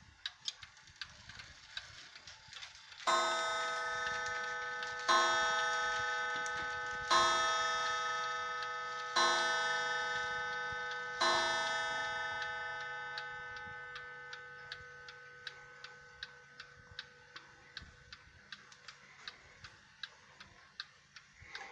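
1881 Ansonia cast iron mantel clock's open escapement ticking steadily while its striking train strikes five blows on its gong, about two seconds apart, each stroke ringing on and fading slowly under the ticking. The hammer is set back from the gong to soften the strike.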